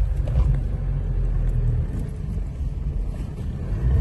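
Nissan Frontier 4x4 pickup driving on beach sand, heard from inside the cab: a steady low rumble of engine and tyres.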